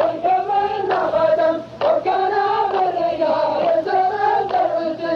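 A group of voices chanting a poetic verse together in long, drawn-out melodic lines: the sung refrain of a qalta (Najdi sung-poetry duel) line.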